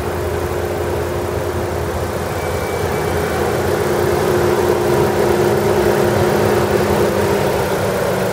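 Chevrolet Cruze's 1.8-litre Ecotec flex-fuel four-cylinder engine idling steadily under the open hood.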